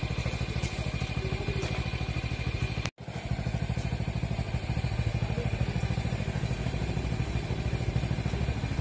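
Motorcycle engine idling with a steady, rapid putter; the sound breaks off for an instant about three seconds in.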